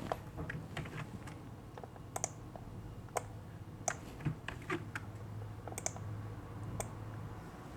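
Irregular clicks of a computer mouse and keyboard, some in quick little clusters, over a faint steady low hum.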